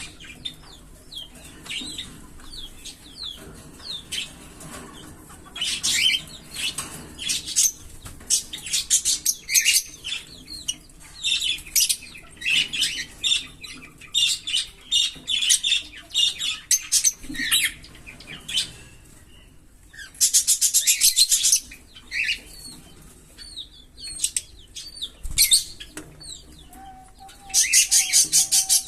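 A pair of Fischer's lovebirds chirping with sharp, high calls. Twice they break into a fast, even run of notes (the 'giggle'), each lasting about a second and a half: once about two-thirds of the way in and again near the end.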